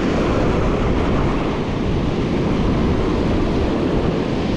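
Surf breaking on shoreline rocks in a steady roar, with wind buffeting the microphone.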